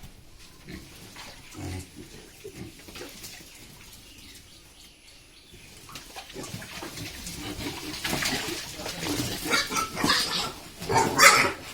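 Pigs grunting faintly, then squealing loudly in repeated bursts over the last few seconds.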